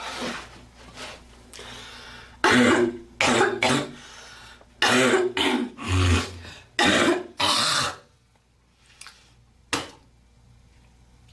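A girl coughing and clearing her throat: three pairs of loud, harsh coughs, then one short cough near the end.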